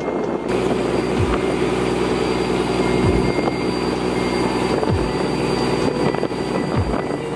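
Background music: a steady held chord with a deep bass hit that falls in pitch about every two seconds.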